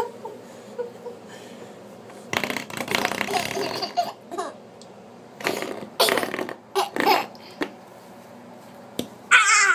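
A baby laughing and giggling in short bursts, ending in a high-pitched squeal, with a spring door stop being flicked so it buzzes and twangs.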